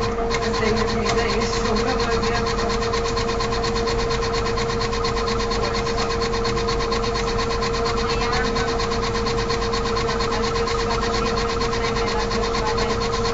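Steady machine hum with a constant mid-pitched tone over even noise and a fast, even pulse, unchanging throughout.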